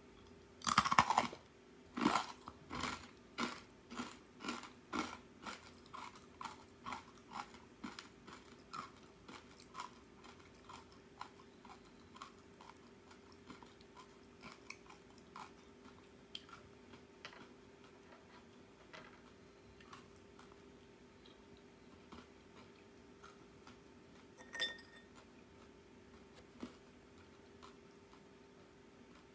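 A crisp, sugar-coated arare rice cracker is bitten with one loud crunch about a second in, then chewed with crunches about two a second that grow steadily fainter over some fifteen seconds. Only faint scattered crunches follow, with a single short ringing clink near the end.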